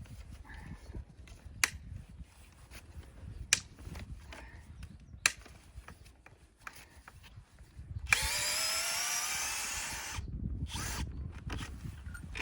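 Power drill running for about two seconds, its pitch rising, preceded by three sharp clicks spaced nearly two seconds apart.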